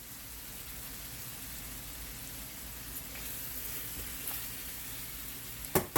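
Onions, green peppers and carrots sizzling in butter in a stainless steel skillet, a steady hiss. A couple of sharp knocks near the end, from the metal tongs turning the vegetables against the pan.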